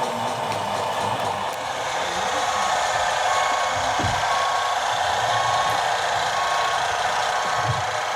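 Reversing beeper of an RC model truck's sound module, sounding short beeps about once a second from about two seconds in, over steady background noise.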